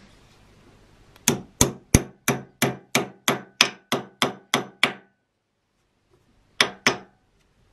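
Hammer driving a wedge into the top of a hatchet handle to lock the head on: a run of about twelve sharp blows, roughly three a second, then a pause and two more blows near the end.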